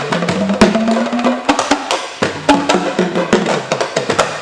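Mbalax band music between sung lines: dense, sharp drum strikes over sustained low tones.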